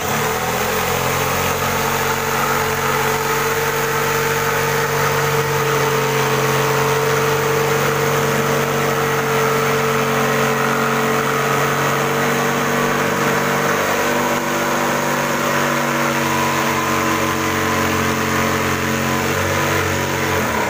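Corded electric jigsaw cutting a circular driver hole in the wooden top panel of a subwoofer box: the motor runs at a steady pitch, with the blade sawing through the wood, and it stops right at the end.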